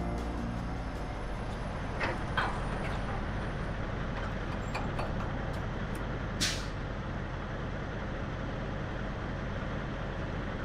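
Diesel semi-truck engine idling steadily, with a short, sharp hiss of released air about six seconds in.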